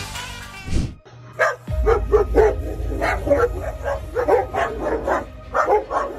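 Background music that cuts off about a second in, then dogs barking rapidly and repeatedly, several barks a second, at a coiled snake, over a low rumble.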